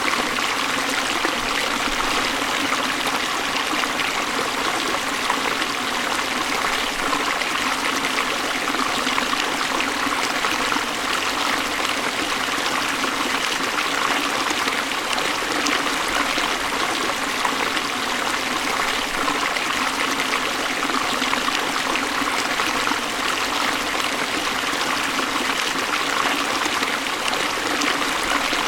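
Waterfall running steadily: an even rush of falling, splashing water with no breaks, mostly hiss and little deep rumble.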